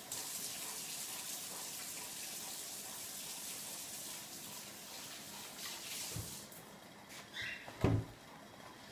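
Water running steadily, stopping about six seconds in, followed by two dull thumps, the second the louder.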